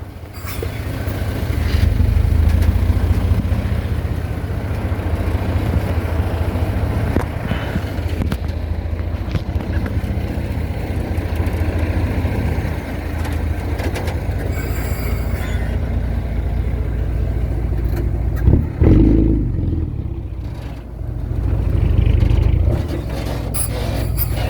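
Diesel engine of an earthmoving machine running under load, its level rising and falling as it works, with a sharp loud knock about three quarters of the way through.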